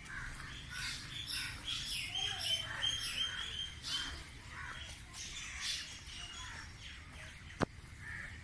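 Birds calling: many short chirps and squawks, with a quick run of repeated notes a couple of seconds in. A single sharp click near the end is the loudest sound.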